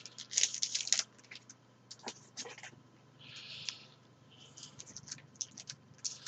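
Trading cards and a foil card-pack wrapper being handled: scattered crinkles and light clicks, with a brief rustle in the middle.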